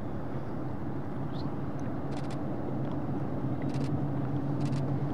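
Motorboat engines running steadily at towing speed, a constant low drone over water and wind noise, with a few faint high clicks in the second half.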